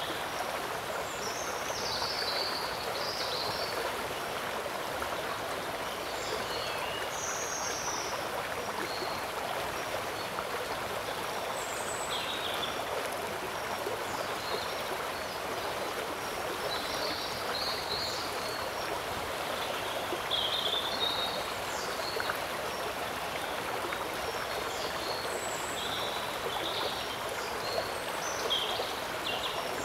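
Shallow river water flowing and rippling steadily, with scattered short high chirps above it.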